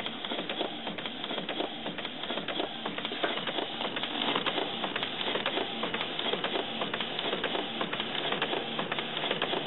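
Canon MX/MG-series inkjet printer printing a colour page: a steady mechanical whirring from the print head and paper feed, with many light clicks.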